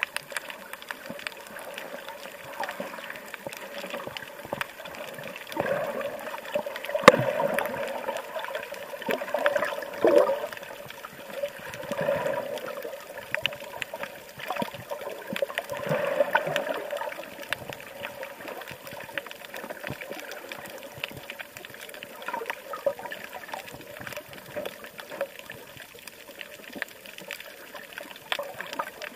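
Running water, an uneven rushing that swells for a stretch in the first half, with a sharp click about seven seconds in.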